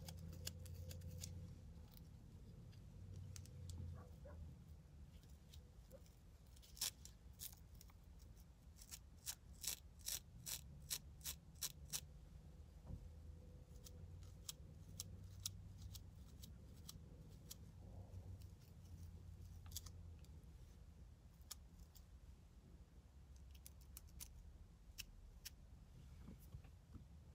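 Plastic fine-tooth comb scraping dandruff flakes off the scalp, heard as a run of sharp little scratching clicks, densest in the middle and again near the end, over a faint low rumble.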